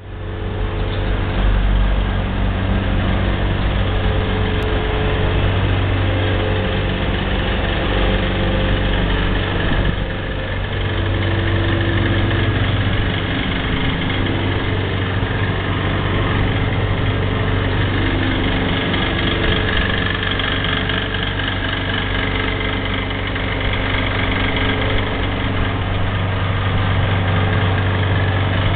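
Iveco TurboDaily school bus's turbodiesel engine idling steadily.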